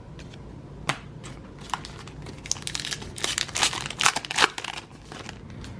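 Crinkling and tearing of a trading-card pack's wrapper as it is ripped open and handled: a run of quick crackles for several seconds.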